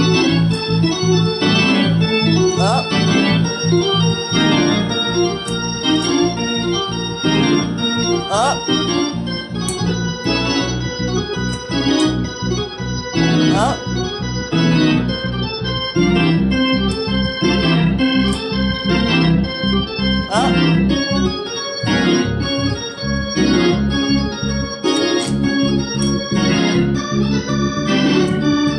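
Two-manual console organ played in a fast gospel praise break: dense, rhythmic chords in both hands, with quick slides up the keys every few seconds.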